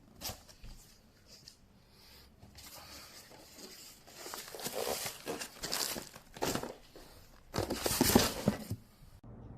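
Irregular rustling and crinkling handling noise, like something being crumpled or torn. It builds from about two seconds in, has its loudest burst near the end, then stops suddenly.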